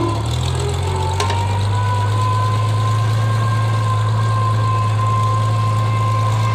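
Old tractor engine running steadily while driving. A steady high whine sets in about a second in and holds over it.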